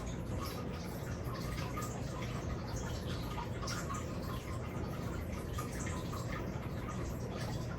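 Obstructive sleep apnea pause in a heavily snoring sleeper: no snoring or breathing, only scattered soft wet clicks over steady low room noise.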